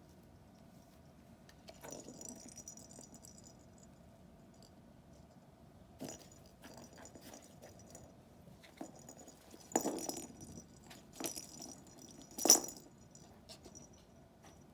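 Toys rattling and jingling inside a cat's hunting box as a kitten paws at them, with several sharp knocks against the box; the loudest knock comes near the end.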